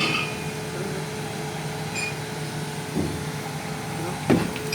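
A machine running with a steady hum, with a short knock about three seconds in and a sharper clunk a little after four seconds.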